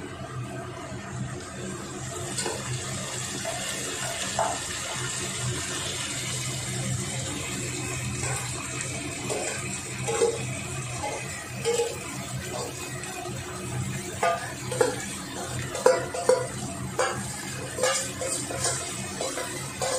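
Sliced onions sizzling in hot oil in a non-stick kadai, with marinated chicken pieces added and stirred in. A spatula knocks and scrapes against the pan every second or two from about halfway through.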